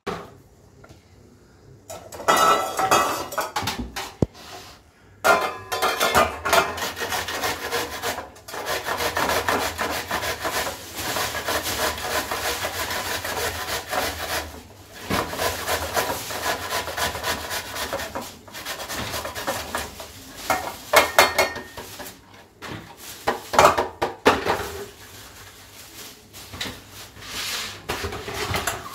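Cucumber being grated by hand on a metal grater: steady rasping strokes that start about two seconds in, with a few short pauses.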